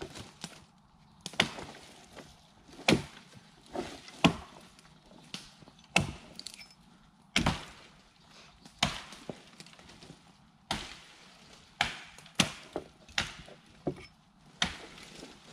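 Axe chopping into wood while limbing branches off a felled tree: about fifteen sharp chops, roughly one a second, some coming in quicker pairs.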